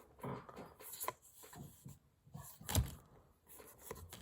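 Trading cards being handled and flipped through by hand: a few faint soft taps and rustles, the strongest near the middle.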